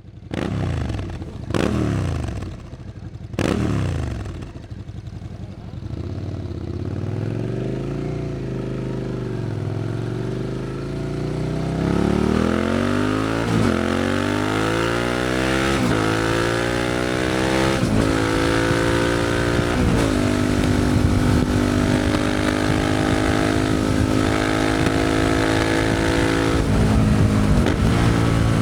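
Suzuki SV650's 90-degree V-twin through a Leo Vince aftermarket exhaust. It starts with three quick throttle blips, then runs low and steady. About twelve seconds in it pulls away, the pitch climbing and dropping back through four upshifts before settling into a steady cruise.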